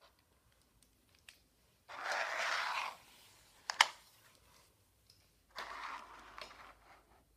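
A nylon LED dog collar being handled: two scraping rustles about a second long each, with a sharp click between them.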